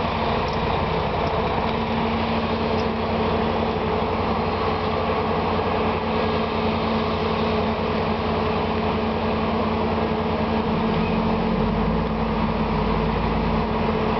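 Heavy diesel engine running steadily, with a deeper low rumble coming in about eleven seconds in.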